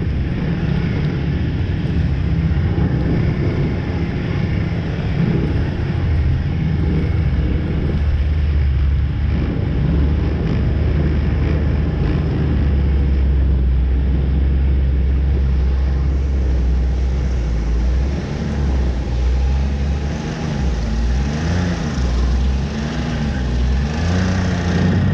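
Snowmobile engine running steadily at speed, heard up close from aboard the sled. Near the end the engine note rises and falls several times with the throttle.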